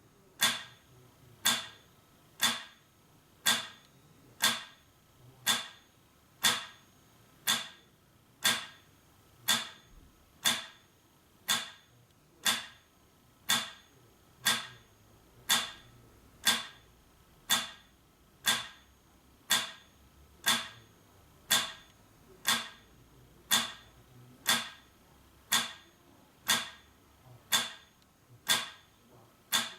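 Metronome ticking at 60 beats per minute: one sharp, even click every second, every beat the same.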